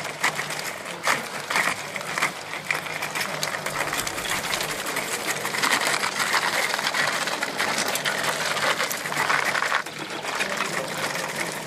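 Electric motors of a Remotec bomb-disposal robot whirring as its manipulator arm moves, with scattered clicks. The whirr grows louder in the middle and eases off near the end.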